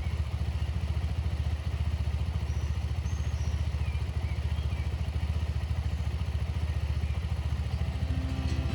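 Motorcycle engine running steadily with a rapid, even firing pulse. Music fades in near the end.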